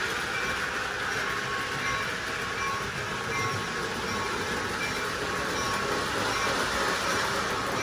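Model electric train running on a store demo layout: a steady rushing clatter of its motor and wheels on the track, with faint short tones coming and going.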